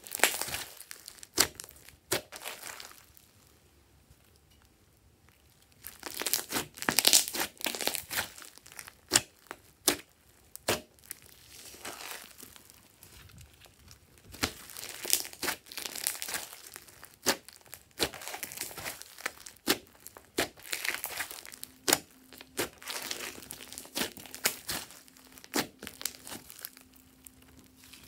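Hands squeezing, stretching and folding a large glossy slime mixed with foam beads and glitter, giving sticky crackling and many sharp pops and clicks, with a lull of a few seconds near the start.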